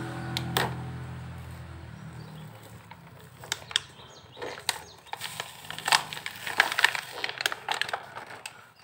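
Plastic blister-card packaging crinkling and clicking as it is handled, in irregular sharp crackles that grow busier from about halfway in. A low steady hum fades out in the first couple of seconds.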